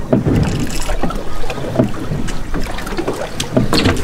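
Wind buffeting the microphone over the low, uneven rumble of a small boat rocking on the water.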